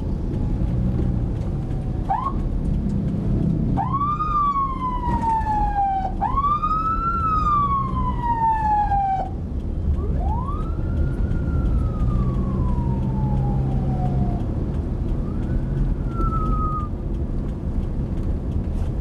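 Electronic vehicle siren sounding in separate wails, a short chirp first, then three long sweeps that each jump up fast and slide slowly down, and a short one near the end. Engine and road rumble run underneath, heard from inside the car.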